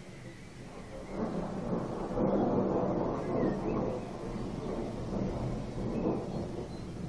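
A long roll of thunder. It builds about a second in, is loudest a couple of seconds later, then slowly eases but keeps rumbling.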